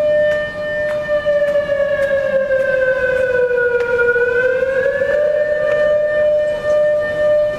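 Civil defense siren sounding for a drill: one steady wailing tone that sags slowly in pitch from about a second in, bottoms out around the middle, and rises back to its first pitch.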